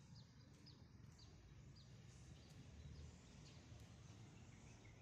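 Near silence: faint outdoor background with small birds chirping, short high chirps about twice a second, fewer after the first couple of seconds.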